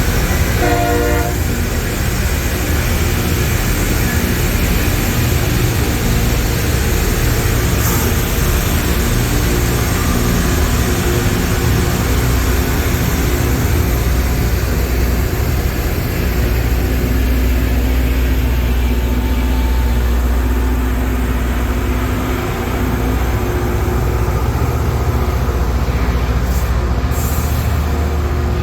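LORAM rail grinder train working the rail as it passes: a loud, steady roar of grinding over the low drone of its diesel engines, with a short pitched horn-like sound about a second in.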